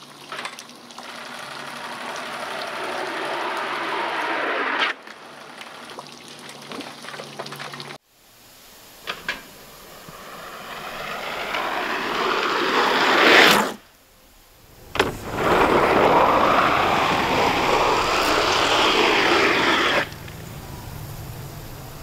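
Ski jumping skis sliding down a snowless summer in-run track: a hiss that grows louder as the jumper gathers speed, then cuts off suddenly as the jumper leaves the takeoff. The run happens more than once, with a couple of sharp clicks in between.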